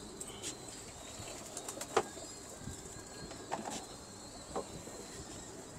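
Pigeons moving about, with a few sharp taps and wing flutters. The loudest tap comes about two seconds in.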